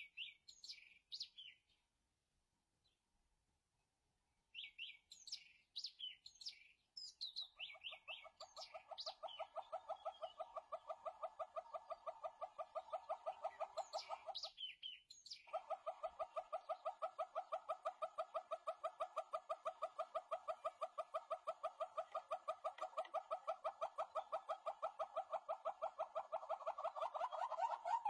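Small birds chirping, then a long, rapid series of even clucking calls at about five a second that grows louder near the end: a southern yellow-billed hornbill calling.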